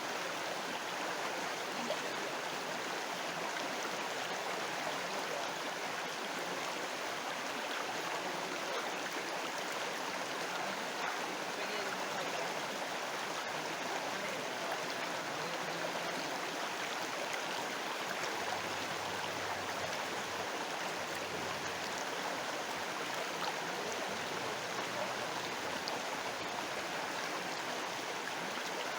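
River water flowing, a steady, even rush of running water with no breaks.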